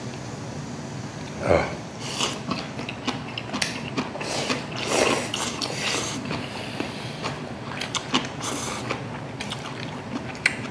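Two men slurping and chewing cold buckwheat noodles (naengmyeon), in irregular short slurps, with small clicks of chopsticks against the stainless-steel basins.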